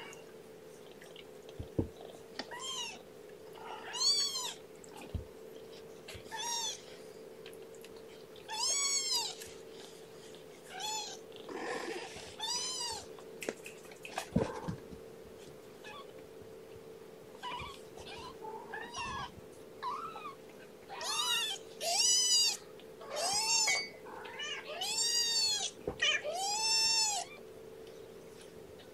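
A young kitten, about two and a half weeks old, mewing again and again in short, high, arched cries, coming faster and louder in the second half. A steady low hum runs underneath.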